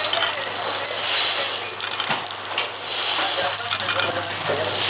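Tea pouch packing machine running: a hissing rush comes about every two seconds with each packing cycle, three times here, over a steady low hum and light mechanical clicking.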